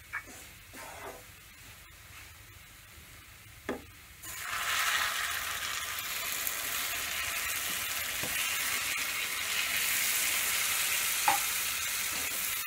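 Wooden spatula stirring and scraping roasted moong dal in a non-stick kadhai, with a few light knocks against the pan. About four seconds in, hot water poured onto the hot ghee-roasted dal sets off a sudden, loud, steady sizzle that keeps going as the mixture is stirred.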